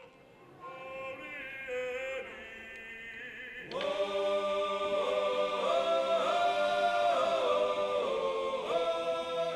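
Choir singing slow, sustained harmonized chords. It starts as a few soft held notes and swells suddenly to full multi-voice singing a little under four seconds in.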